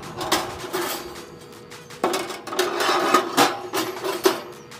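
Metal grates of a Z Grills 1000 pellet grill being set into the cooking chamber by hand: irregular clanks and rattles of metal on metal, busiest in the second half.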